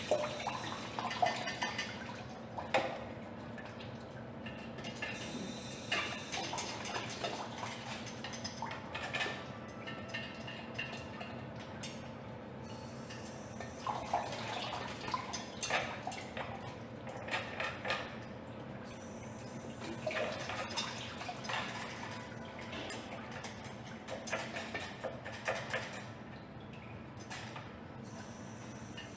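Water trickling and dripping during drain-unblocking plumbing work, with scattered clinks and knocks of tools and pipe fittings.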